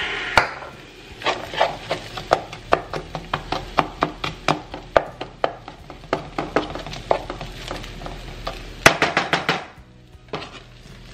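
A spatula tapping against a nonstick skillet of frying shredded potatoes and onions. The taps come about two or three a second, with a quick flurry near the end.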